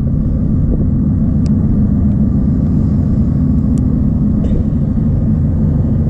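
A steady low rumble, loud throughout, with a few faint ticks.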